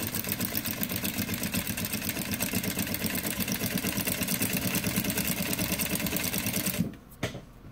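New Tech GC-8700 industrial lockstitch sewing machine running steadily at a fast even stitch rate, sewing a seam along the fabric edge, then stopping near the end.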